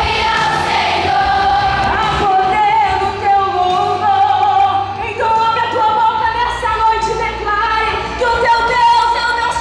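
Choir and female voices singing a gospel song over instrumental accompaniment.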